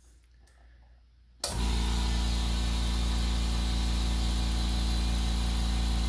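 California Air Tools 8010A ultra-quiet oil-free air compressor switching on about a second and a half in and running steadily: a low hum with an even hiss over it, reading about 75 dBA on a sound level meter held close.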